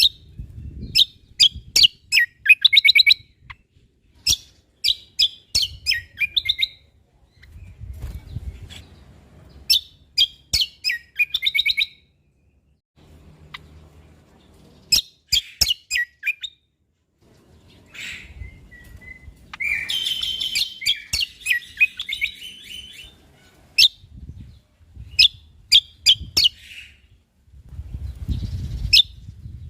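Cucak kombo (kecial kombok) singing in bursts of rapid, sharp chirping notes repeated in short phrases with brief pauses between, with a scratchier chattering passage about two-thirds of the way through.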